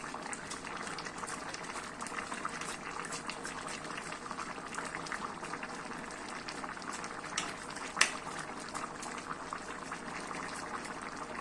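Plov zirvak with the rice just poured in, bubbling steadily at a boil with a dense crackle of small pops. A single sharp click stands out about eight seconds in, with a smaller one just before it.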